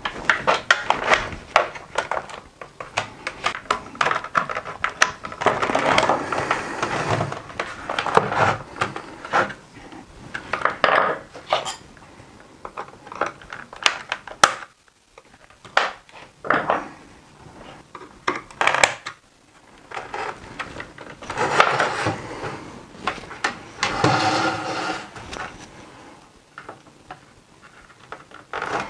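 A small flat-blade screwdriver pushing in and prying the plastic retaining tabs of a Saab 9-3 ICM2 radio unit, with irregular plastic clicks, scraping and knocks as the faceplate is worked loose from the backplate.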